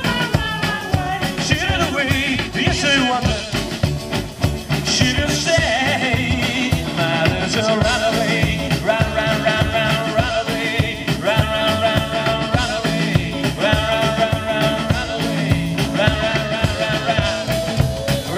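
Rockabilly band playing live: upright double bass, acoustic guitar and hollow-body electric guitar over a fast, steady beat, with sustained held notes from about seven seconds in.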